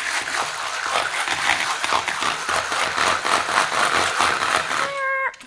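Hand-cranked rotary egg beater whisking eggs in a ceramic bowl: a rapid clattering whir of the beaters against the bowl, which stops about five seconds in. The eggs are being beaten until fluffy.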